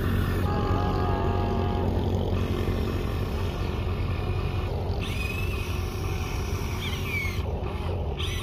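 Radio-controlled model excavator's small electric motors whining as the boom and bucket move, the whine wavering in pitch with the load. A steady low hum runs underneath.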